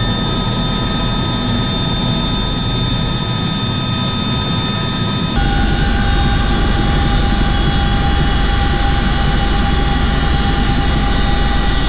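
Aircraft turbine engines running, a steady high whine over a rushing rumble. About five seconds in the sound switches abruptly to a deeper, heavier rumble with a different whine.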